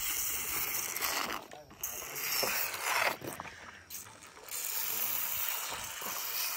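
Young elephant calf sucking milk from a large hand-held plastic feeding bottle: noisy sucking and slurping at the teat in stretches with short breaks.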